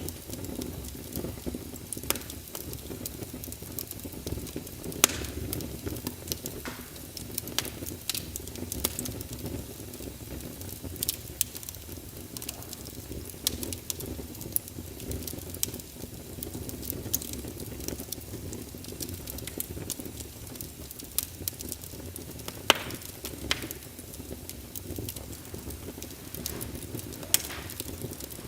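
Wood fire burning in a fireplace: irregular sharp crackles and pops, with a few louder snaps, over a steady low rumble of the flames.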